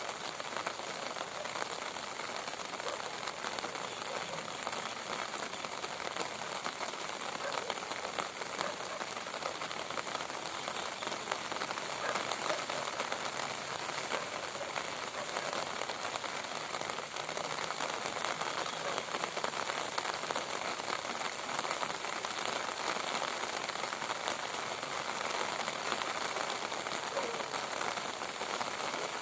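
Steady rain: a dense, even spatter of countless drops hitting a surface.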